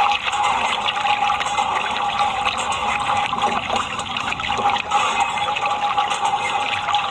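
Water running steadily, as when muddy toy vehicles are rinsed under a tap or hose, with a constant hum underneath.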